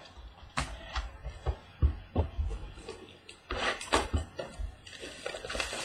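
Handling noise from trading cards and their cardboard box being moved and opened: a run of light knocks and thuds with short bursts of rustling.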